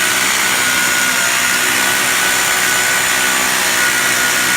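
Hammer drill boring into a concrete floor, with a vacuum cleaner running at the bit to suck up the dust; a loud, steady mix of grinding noise and motor whine.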